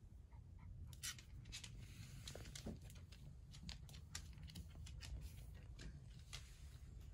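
Faint, irregular ticks and scratches of a miniature dachshund's claws on a wooden floor as it moves about, mixed with the rustle of a hand stroking its fur.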